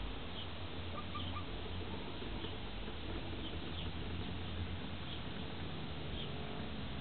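Chickens settling on a roost, giving faint, short high-pitched peeps every second or so over a steady low hum, with a quick run of three soft notes about a second in.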